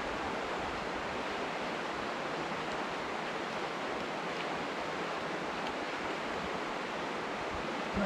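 Steady, even rushing of a river flowing past a footbridge, unchanging throughout.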